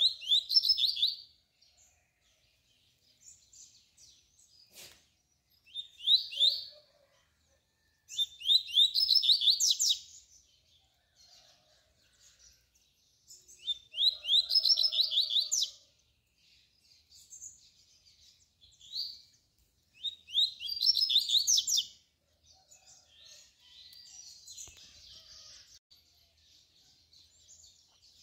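Male double-collared seedeater (coleiro) singing its tui-tui song: repeated phrases of fast, rising, high notes, roughly every six seconds, with quiet gaps between. A single sharp click about five seconds in.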